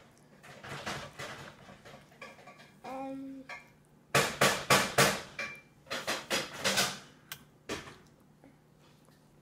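A baby eating macaroni with her fingers from a plastic bowl: runs of sharp clicks, taps and knocks from her hand in the bowl and at her mouth, in three bursts, the loudest about four seconds in. A short hummed note comes about three seconds in.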